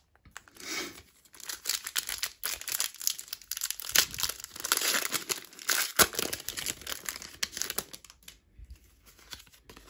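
Pokémon TCG booster pack's foil wrapper crinkling as it is torn open and handled, with sharp louder crackles about four and six seconds in, dying down near the end.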